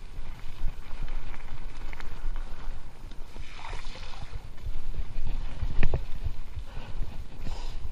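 Giant Stance full-suspension mountain bike rolling over a rough dirt trail: a steady low rumble of tyres and wind on the microphone, with rattling clicks from the bike and one sharp knock about three quarters of the way through.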